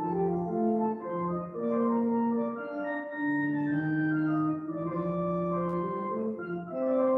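Pipe organ playing sustained chords that change every second or so over held bass notes.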